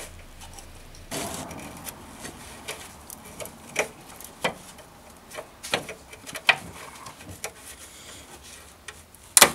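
A thin metal pick scraping and clicking against the crimped clamp on an inner tie rod boot as the clamp is pried loose. Scattered sharp clicks, with a longer scrape about a second in and the loudest click near the end.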